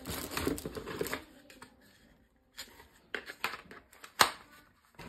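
Plastic packaging crinkling and tearing for about the first second, then scattered light clicks and rustles of plastic toy parts being handled, with one sharper click about four seconds in.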